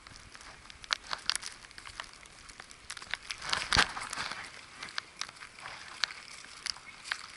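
Footsteps crunching in snow: an uneven run of sharp crunches and crackles, with one louder crunch and a dull thump about four seconds in.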